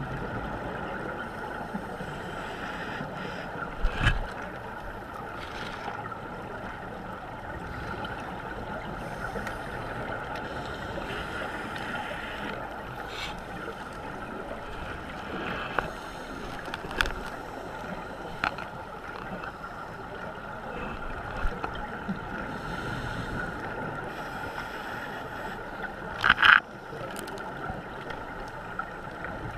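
Underwater ambience heard through a GoPro HERO3's waterproof housing: a steady muffled hiss, broken by scattered sharp clicks and knocks, the loudest a short cluster of knocks near the end.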